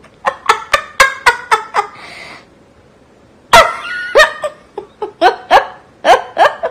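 A person laughing hard in high-pitched bouts of quick 'ha-ha' bursts, with a breathy in-breath about two seconds in before a louder second bout.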